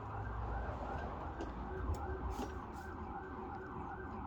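Emergency vehicle siren sounding in a fast rising-and-falling yelp, about three cycles a second, over a low rumble.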